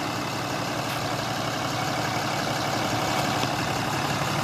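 2012 Ram 5500 tow truck's 6.7-litre Cummins turbo-diesel idling steadily.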